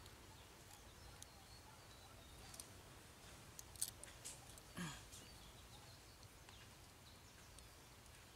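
Near silence with a few faint clicks from hands working a trussed duck onto its wooden stake, the loudest about four seconds in, and one short sound falling in pitch just before the middle.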